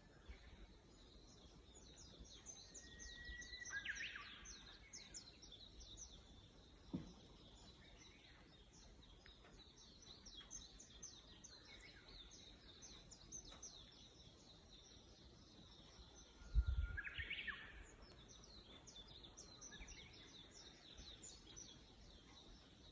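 Birds chirping in a morning chorus, many short high chirps overlapping throughout. Twice, a louder bird holds a long whistled note that breaks into a quick warbling flourish. A brief low thump comes about two-thirds of the way through.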